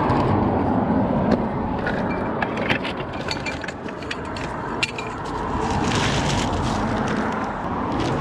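Street traffic passing, swelling twice, with scattered light clinks and rattles of scrap metal being handled in between.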